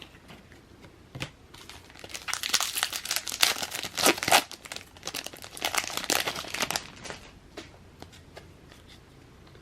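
Wrapper of a 2022 Topps Series 1 baseball card pack crinkling and tearing as it is opened, a dense crackle from about a second and a half in to about seven seconds, then a few light rustles.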